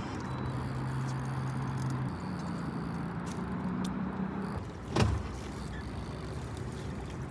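Boat motor running with a low steady hum that steps up in pitch about two seconds in, over a steady wash of noise. A single sharp knock about five seconds in is the loudest sound.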